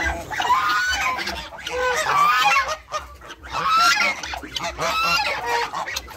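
A flock of domestic geese, brown Chinese geese among them, honking loudly. Many honks come in quick succession and overlap one another.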